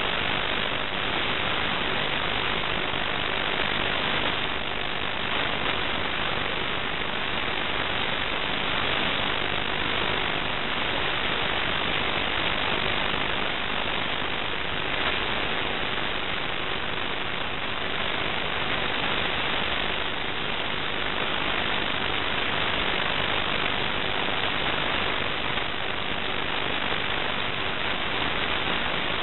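Steady, even hiss of static from an analog FPV video receiver's recording, the empty audio channel of the quad's video link.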